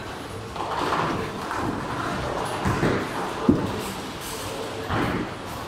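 Bowling alley din: scattered voices over the thuds and knocks of balls and pins from the lanes, with one sharp knock about three and a half seconds in.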